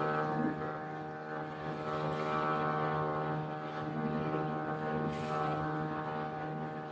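Motorboat engine running steadily under way, a constant drone that holds the same pitch throughout.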